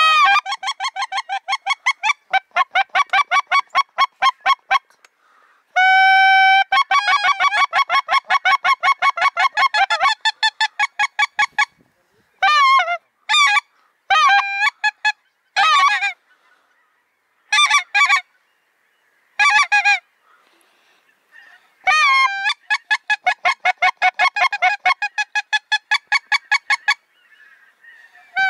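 Goose honking: long fast runs of short honks, about six a second, broken by pauses, with a few longer drawn-out honks in the middle.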